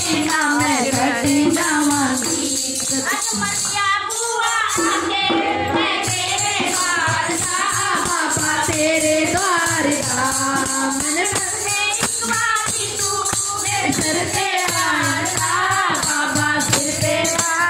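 Women singing a devotional song together, accompanied by a dholak drum and rhythmic handclapping.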